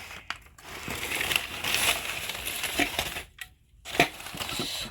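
Packaging being handled as a fire alarm horn is worked out of it by hand: uneven rustling with a few light knocks, and a brief pause a little past halfway.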